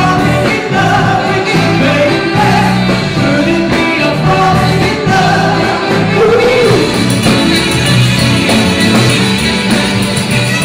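Live soul-jazz band playing, a steady bass line under keyboards, with a singing voice over the music.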